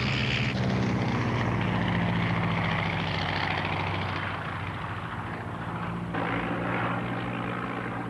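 Piston engine of a propeller-driven biplane droning steadily, slowly growing quieter over the first half.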